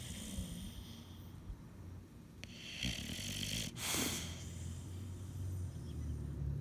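Bulldog snoring: a low, steady snore with two breathy, hissing breaths about three and four seconds in.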